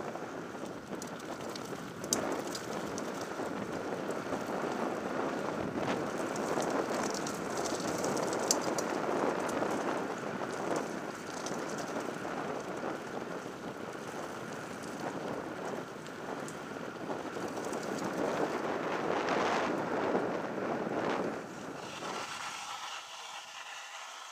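Downhill mountain bike rolling fast down a gravel track: steady tyre noise over loose stones with scattered clicks and rattles of the bike, mixed with wind rush. Near the end the noise drops and a quieter, fast even ticking comes through as the bike slows.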